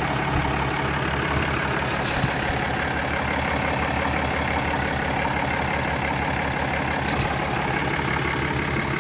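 Truck engine idling steadily, just after an oil and filter change, with a couple of faint clicks about two and seven seconds in.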